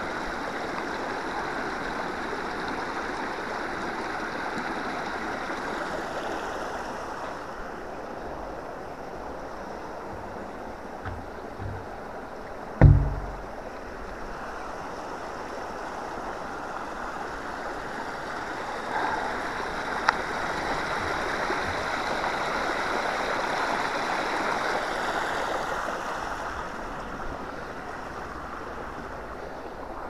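Water rushing fast down a narrow concrete channel over stones, a steady splashing rush that eases slightly and swells again. A single loud low thump about thirteen seconds in.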